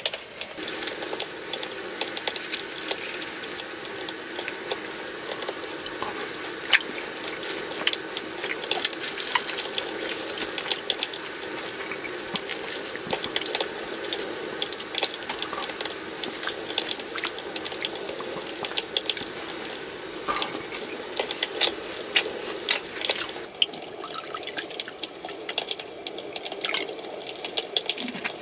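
Food frying in a hot pan: a steady sizzle dotted with frequent sharp crackles and pops, thinning a little about 23 seconds in.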